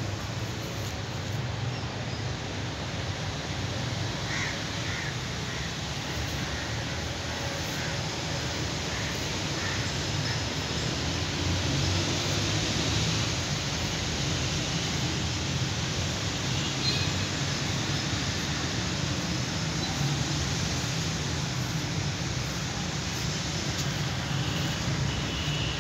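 Steady outdoor background noise, with a few faint short animal calls about four seconds in and again around seventeen seconds.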